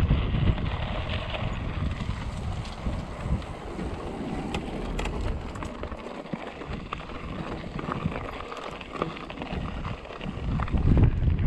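Trek Remedy mountain bike being ridden on a dirt trail: tyre noise with scattered clicks and rattles. Wind buffets the action-camera microphone, loudest at the start and near the end.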